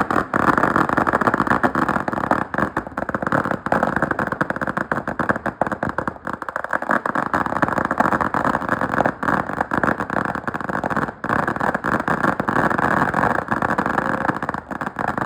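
A ground firework crackling in one dense, unbroken rattle of tiny pops that starts and stops abruptly and lasts about seventeen seconds.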